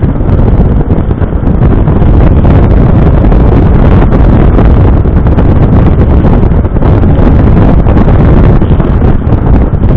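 Loud, steady wind buffeting on an onboard camera microphone in a moving Smart Roadster, with the car's engine and road noise running underneath.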